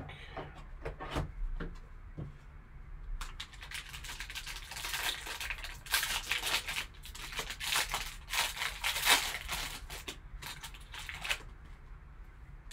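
A foil-wrapped trading card pack being torn open and its wrapper crinkled in the hands: a run of crackly rustling for several seconds that stops near the end.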